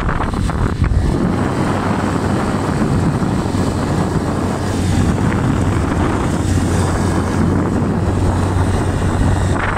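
Small motorcycle engine running steadily while riding, a constant drone.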